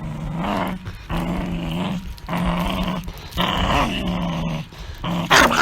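A beagle growling in a run of drawn-out growls, about five in a row with short breaks between, ending in a short, sharp, higher-pitched yelp.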